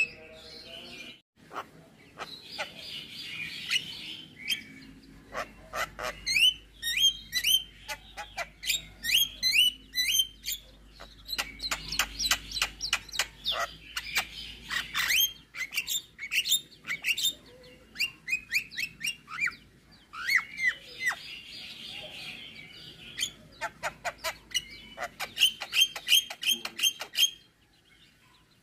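Javan myna singing a varied song full of mimicked 'isian' phrases: rapid runs of sharp chirps and whistles mixed with stretches of harsh, scratchy chatter. It falls quiet near the end.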